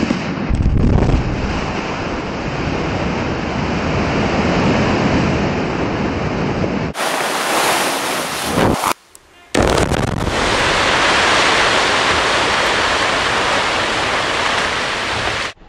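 Quarry blasting: explosive charges going off in a rock face, followed by the long, steady noise of blasted rock sliding and tumbling down the face. Several blast clips are cut together, and the sound breaks off abruptly about seven and nine seconds in.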